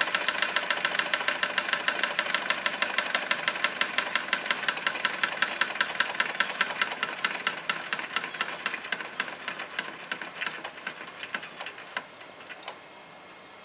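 Wilesco D18 toy steam engine running with a fast, even chuff of exhaust puffs, about four to five a second. Over the last few seconds the beats slow, weaken and stop as the boiler runs out of steam.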